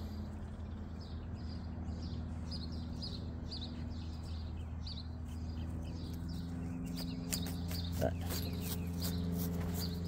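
Short high chirps repeating evenly, about two to three a second, over a steady low hum. About six seconds in the hum grows louder, the chirps fade, and a few sharp clicks come in.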